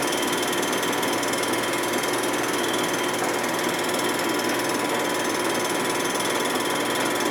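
Machine tool running steadily while a cutting bit takes a facing cut across the gasket surface of a Harley-Davidson Sportster 1200 engine part, with a steady high whine over the cutting noise. The bit is dull and tears the metal, leaving a rough finish.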